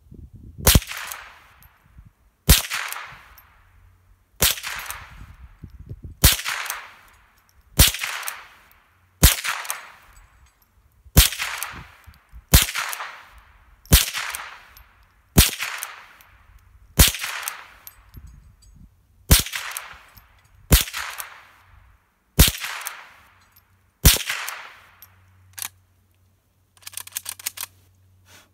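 Henry Frontier H001T .22 rimfire lever-action rifle firing about fifteen single shots, one every one and a half to two seconds, each report trailing off over about a second. A few lighter clicks near the end as the action is worked after the last shot.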